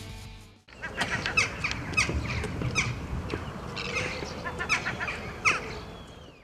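Outro music fades out, then gulls call again and again over a steady wash of noise. Each cry is a short note that falls steeply in pitch.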